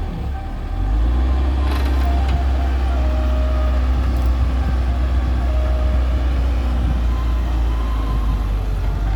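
Excavator and tractor diesel engines running with a steady deep rumble that dips briefly near the start. A couple of short knocks come about two and four seconds in.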